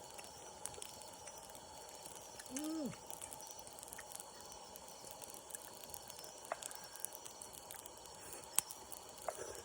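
Wood campfire crackling with scattered sharp pops over a steady faint hiss from the pot of sukiyaki simmering on it. A short hum of a voice comes about two and a half seconds in.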